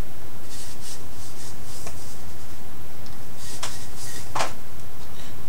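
Hands handling and stretching a thick rubber bike-mount strap, short scuffing and rubbing sounds that come and go, with a few sharper rubs late on, over a steady low hum.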